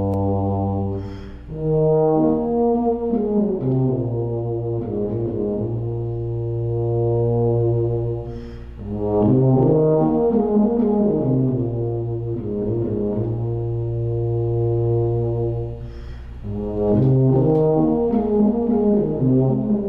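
Unaccompanied tuba playing a slow melodic line: long held low notes alternating with moving passages, broken by three short breaths between phrases. The notes ring on in a large, reverberant hall.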